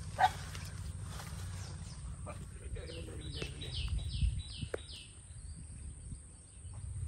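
A bird calling about six times in quick succession, a short note repeated evenly, starting about three seconds in, over a steady low rumble, with a few short knocks as men wade through pond water.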